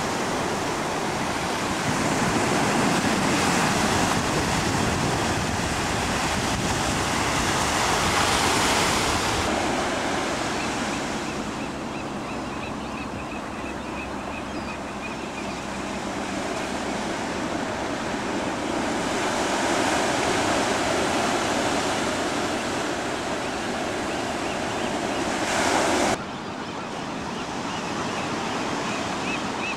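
Pacific Ocean surf breaking on the beach and around offshore rocks: a continuous rush of waves that swells and eases with each set. The sound changes abruptly twice, about a third of the way in and near the end.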